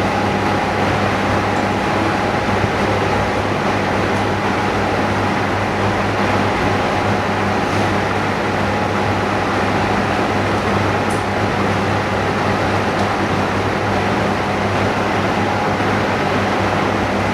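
Steady hum and hiss of running workshop machinery, a motor or fan, with a few faint high clicks.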